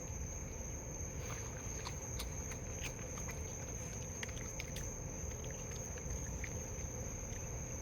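Scattered small clicks and taps of raccoons eating and handling food on a table and in a bowl. A steady high insect drone runs underneath.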